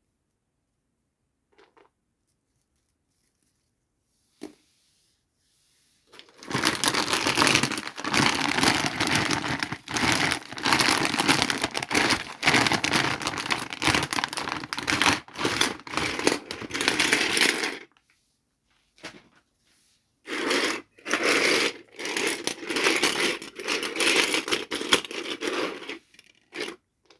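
Toy packaging being torn open and handled: long spells of loud scraping, tearing and crackling of plastic and cardboard, in two stretches with a short pause between them, after a few faint taps.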